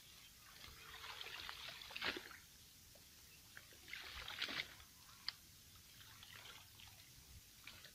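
Pond water splashing and dripping as clumps of water hyacinth are pulled out of a shallow net by hand, in two spells: about a second in and about four seconds in.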